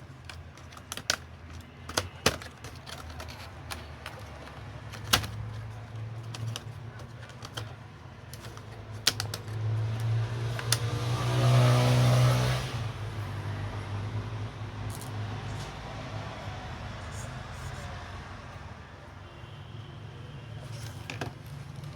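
Scattered sharp clicks and taps over a steady low hum, with a louder rushing noise that swells about ten seconds in and fades about three seconds later.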